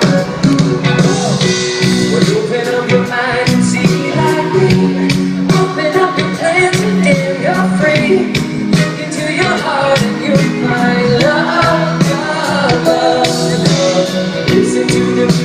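Live band music with a man singing lead over a steady beat.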